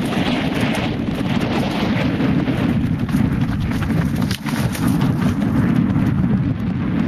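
Heavy wind buffeting on the microphone of a camera moving fast down a rocky dirt trail, with a steady rattle of knocks and clatter from the rough ground. The noise briefly drops about four seconds in.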